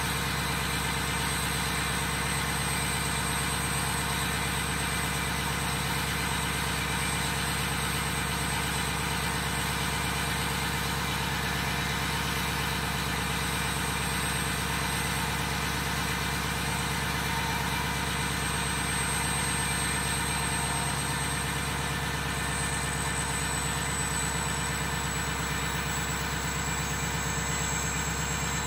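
Ford 6.0 Powerstroke V8 turbo-diesel idling steadily at the exhaust tip while it warms up after a cold start, with a thin steady high-pitched whine over it.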